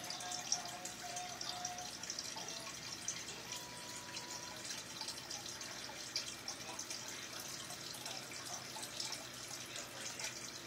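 Aquarium water bubbling and trickling: a steady patter of many small drips and bubble pops.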